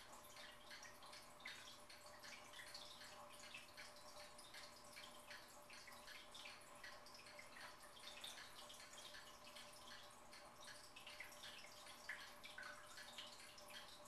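Quiet fish tank water trickling and dripping, a dense irregular patter of small splashes and bubbles, over a faint steady hum.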